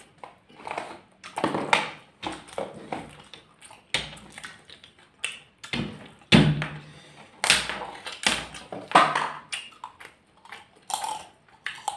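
Close-miked eating sounds of two people eating rice and fried side dishes by hand: chewing, lip smacks and crunchy bites in irregular bursts, with a couple of short hummed 'mm' sounds.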